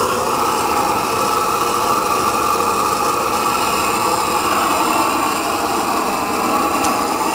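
Propane tiger torch burning with a steady rushing noise.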